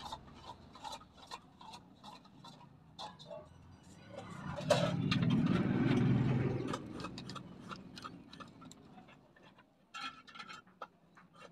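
Light clicks and taps of a 4440 IC and tools being handled on an amplifier circuit board, scattered throughout. A louder, unidentified sound swells and fades for about two seconds in the middle.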